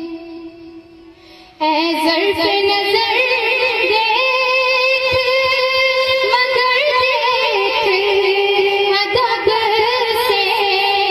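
A young woman's solo voice singing a naat, an Urdu devotional song in praise of the Prophet, through a microphone. A held note fades out, there is a short breath pause, and about a second and a half in she resumes with an ornamented, wavering melody that carries on without a break.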